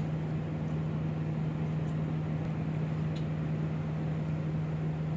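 A steady low machine hum holding one pitch, over a constant rushing background, with a few faint ticks.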